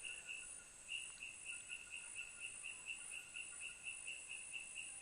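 Rainforest insects calling: a faint chirp repeating about three times a second over a continuous high-pitched buzz.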